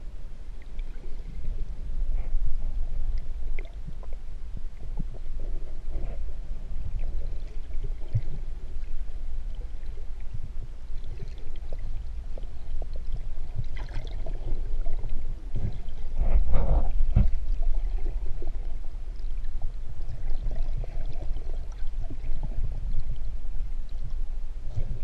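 Underwater sound picked up by a submerged camera: a constant low rumble of moving seawater, muffled, with scattered small clicks and knocks and a louder stretch of knocks about two-thirds of the way through.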